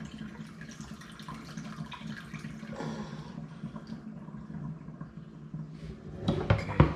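Kitchen tap water running into the sink while raw chicken is rinsed, a steady splashing hiss. Near the end come a few loud knocks, like a bowl or utensils being handled in the sink.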